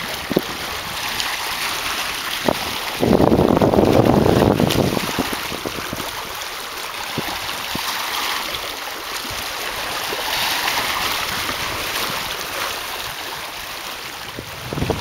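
Small waves lapping and splashing against the rocky shore of a lake, steady throughout. Wind buffets the microphone in a louder gust from about three to five seconds in.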